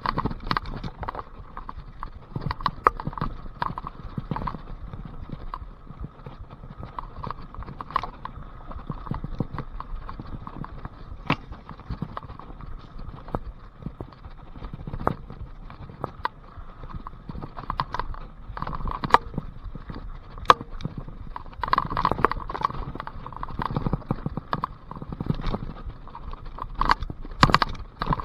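Mountain bike ridden along a muddy trail: rolling tyre noise under a dense, irregular clatter of clicks and knocks as the bike rattles over roots and bumps.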